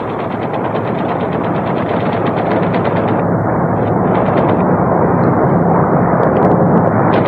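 Aircraft machine guns firing in one long unbroken burst, a fast steady rattle of shots over a low steady hum, growing slowly louder.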